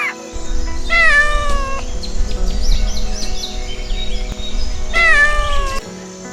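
Domestic cat meowing twice, each meow a drawn-out call falling in pitch, about four seconds apart. A low rumble like wind on the microphone runs beneath the calls.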